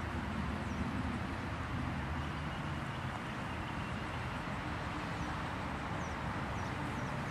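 Steady outdoor background noise, mostly a low rumble, with a few faint, short high chirps.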